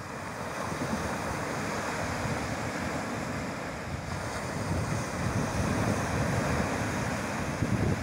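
Small sea waves breaking and washing up a pebbly sand beach, a steady rush of surf that swells louder in the second half. Wind buffets the microphone with low rumbles.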